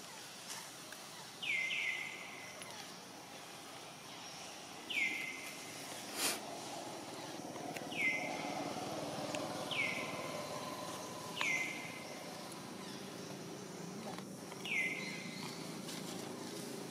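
A bird calling over and over, a short falling whistled note repeated about seven times at uneven gaps of one to three seconds, with one sharp click about six seconds in.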